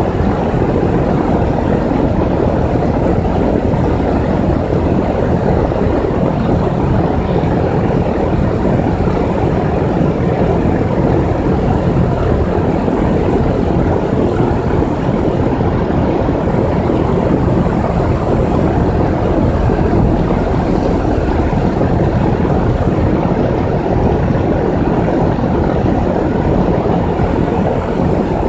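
2001 Goodman air conditioner running steadily, a loud even noise with no change in level.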